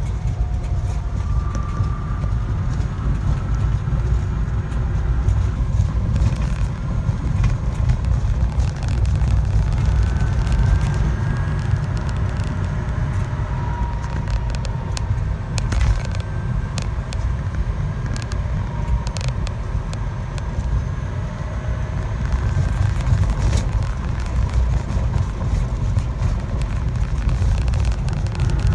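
A vehicle running with a steady heavy low rumble, with faint short squeaky tones coming and going above it and scattered small clicks: the abnormal noise being recorded.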